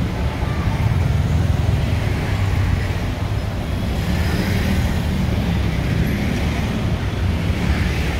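Steady road traffic on a busy city street: a continuous low rumble of vehicle engines and tyre noise with no breaks.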